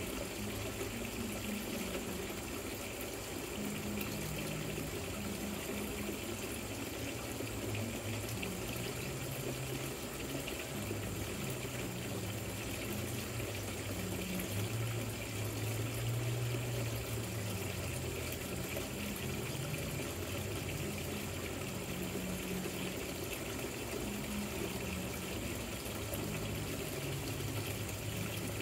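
Water running steadily down a rock waterfall fountain, splashing and trickling without a break, with a low wavering hum underneath.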